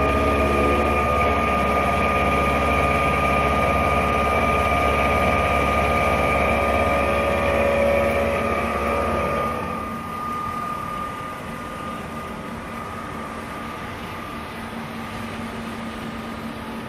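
Roku Roku Vertimac-M CNC vertical machining center milling a metal block: the spindle and cutter run with a steady whine over a low hum. About ten seconds in the sound drops and the hum falls away, leaving a quieter steady whine.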